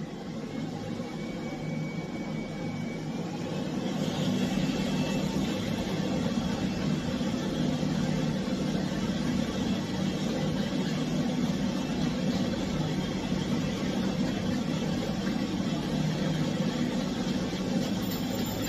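Dog grooming dryer blowing, its motor whine rising in pitch and getting louder as it speeds up over the first few seconds, then running steadily.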